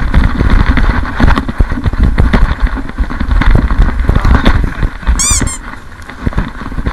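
A player's footsteps and gear rustling close on a body-worn camera microphone: irregular heavy thumps and handling noise while moving across snow. About five seconds in, a brief high squeak sounds twice.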